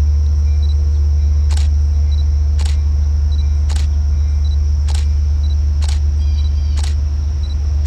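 Steady low rumble of a stationary DM30AC diesel locomotive idling, with a sharp click about once a second and a steady high-pitched buzz over it.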